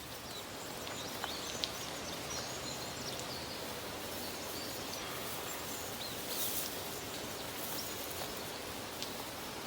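Steady outdoor rural ambience: an even rustling hiss, with a few short, faint high bird chirps scattered through it.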